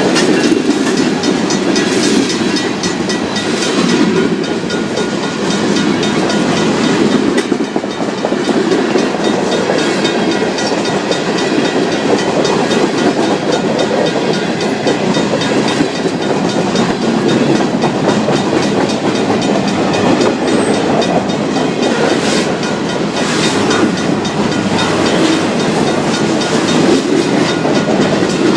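Freight train rolling through a grade crossing, its wheels clacking steadily over the rail joints with occasional heavier knocks. Through it a crossing's mechanical bell rings rapidly and without a break.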